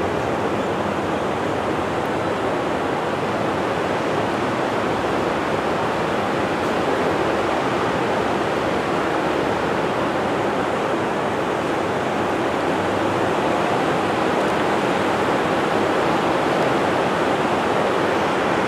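Steady, even rushing noise that does not change, with no voices or other distinct sounds.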